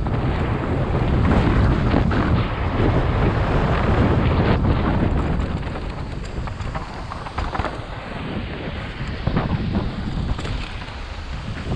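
Wind buffeting the camera microphone of a mountain bike descending fast on a dry dirt trail, over the rumble of the knobbly tyres and short knocks and rattles from the bike on rough ground. It is louder in the first half and eases a little after about six seconds.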